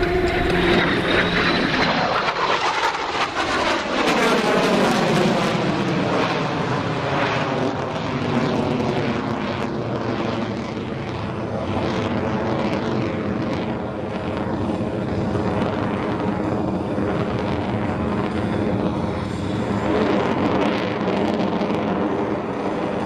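F-22 Raptor's twin Pratt & Whitney F119 jet engines passing overhead: a whine that falls in pitch over the first few seconds as the jet goes by, then steady jet noise with a wavering, phasing quality as it manoeuvres overhead.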